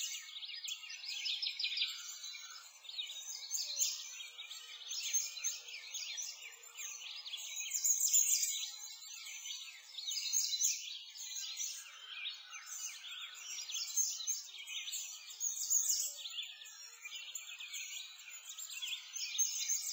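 A chorus of many small birds chirping and singing at once, a dense, unbroken stream of short high chirps.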